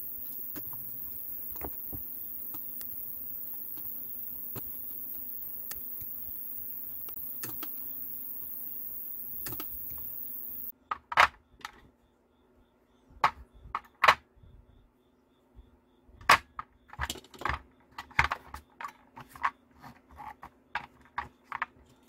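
Scattered light clicks from handling a strip of lithium-ion cells and cable on a silicone work mat, over a steady high hiss. About halfway through the hiss cuts off, and sharper irregular clicks and knocks follow as loose cylindrical lithium-ion cells are picked up, knocked together and set down on the mat.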